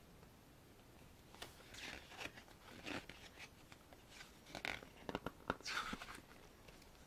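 Pages of a photobook being turned and bent by hand: soft paper rustles and swishes with a few crisp page flicks, the loudest about five and a half seconds in.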